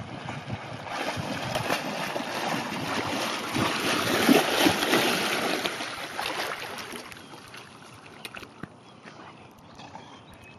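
Bernese mountain dog splashing through shallow river water, loudest about four to five seconds in, then dying down to quieter water sounds as it swims.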